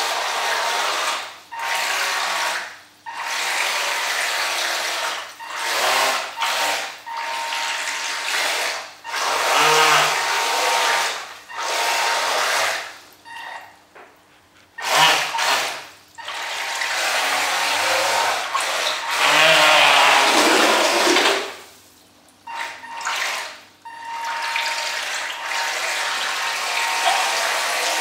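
Homemade RC boat's small electric motor run in repeated bursts of throttle, its Aquacraft propeller churning and splashing the water, each burst a few seconds long with short pauses between.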